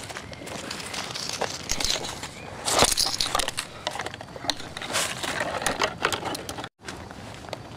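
Dry twigs and bare branches rustling and scraping against the camera as it is pushed through bushes, in irregular crackling bursts, the loudest about three seconds in. The sound cuts out for an instant near the end.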